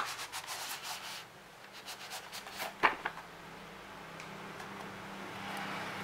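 Cardboard keyboard packaging rubbing and scraping as the box is handled, with a sharp knock a little under three seconds in.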